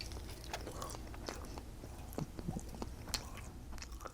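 A person chewing a mouthful of turkey hot dog corn dog in pancake-mix batter: quiet, with scattered small mouth clicks.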